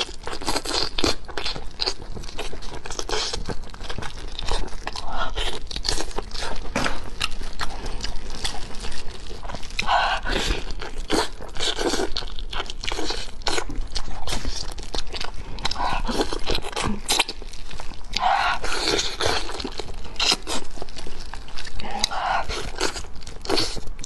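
Close-miked eating of braised pig's trotters: wet chewing, biting and lip smacks as skin and meat are pulled off the bone, with a constant run of sharp mouth clicks.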